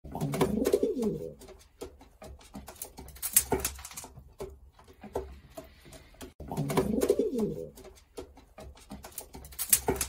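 Racing pigeons cooing in a loft, two low rolling coos about six seconds apart, with many sharp clicks of beaks pecking grain from a clay dish in between.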